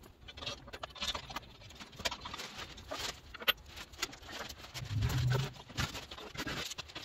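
Small metal clicks and taps of bolts and washers being handled and started by hand against a steel spare tire carrier reinforcement plate, with one sharper click about three and a half seconds in and a brief low sound about five seconds in.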